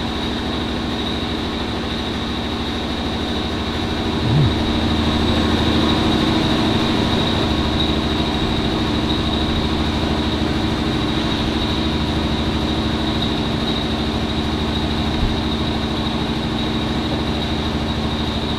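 Steady running of machinery or an engine: a constant low drone with a high whine over it, and a short low rise in pitch about four seconds in.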